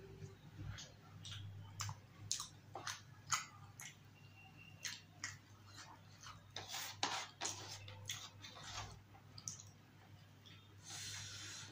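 Chewing of yogurt-topped samosa chaat, with many short wet clicks and smacks from the mouth and the squish of fingers breaking the soaked samosa on the tray. The clicks come thickest a little past the middle.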